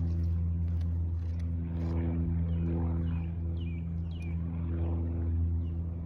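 A steady, low engine drone holding one pitch, with several short falling chirps from a small bird in the middle.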